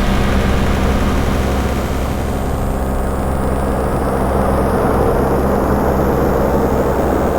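Ambient drone music from a software modular synthesizer: sustained low tones under a shifting haze of noise, with the high end dulling after about two seconds.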